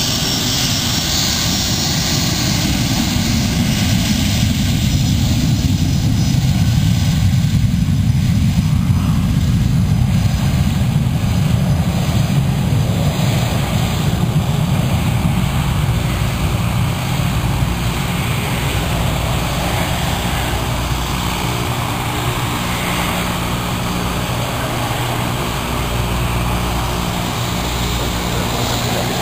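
An aircraft's engines at takeoff power on the runway. The noise builds to its loudest about eight seconds in, then eases into a steady low engine hum.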